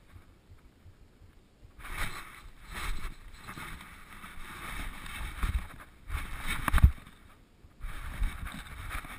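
Rustling and bumping of a camera strapped to a dog's harness, rubbing against fur and straps as the dog moves and is handled; irregular short scuffs every second or two, a few with dull knocks.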